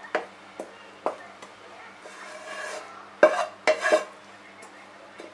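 A metal utensil scraping and knocking against a cooking pan as boiled, chopped banana blossom is scraped out into a plastic strainer. There are a few sharp clinks at first, then the loudest clattering a little after three seconds in.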